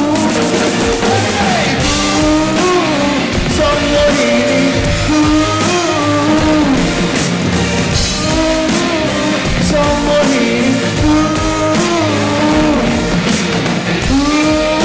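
A live Odia song duet: a male and a female vocalist sing a gliding melody over a backing band with keyboards and drums, amplified through the stage PA.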